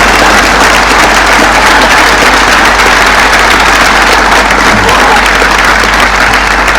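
Large crowd applauding and cheering, a loud, steady roar of clapping and voices.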